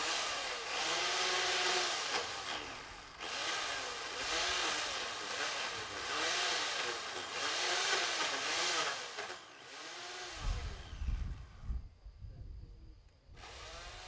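Chainsaw cutting into oak, its motor revving up and down in repeated bouts of about a second each, with two short let-offs. The saw stops about ten seconds in, and a low rumble follows.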